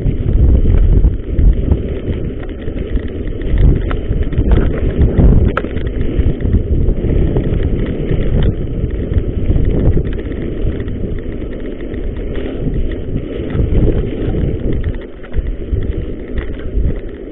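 Mountain bike riding fast down a rough, wet trail: wind buffeting the microphone over a steady rumble of tyres and frame rattle on the rough ground, with sharp knocks a few seconds in.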